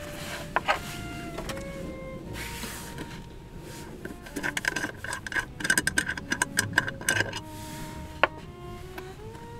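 Background music with soft sustained notes. About four seconds in, a quick run of small metallic clicks and scrapes lasts about three seconds as a stainless hip flask and its little metal cup are handled on a wooden table, with a single knock near the start and another near the end.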